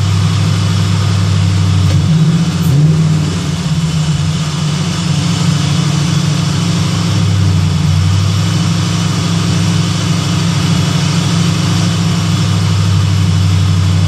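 Terminator Cobra supercharged 4.6-litre DOHC V8, swapped into a Fox-body Mustang, idling steadily while it runs to warm up and burp air from the cooling system. Its pitch bends up briefly about two and a half seconds in.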